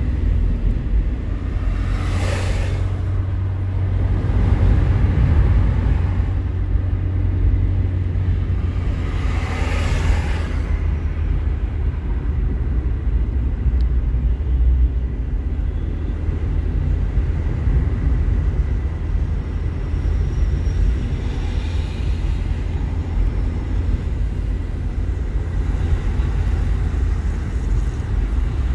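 Steady low road and engine rumble of a moving car, heard from inside the cabin, with two brief swells of hiss as traffic goes by.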